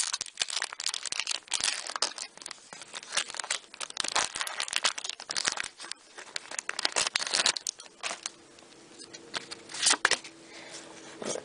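Foil wrapper of a Pokémon trading card booster pack crinkling and tearing open by hand in a dense run of crackles and rips. It quietens after about eight seconds, as the cards are pulled out, with one more loud crackle near the end.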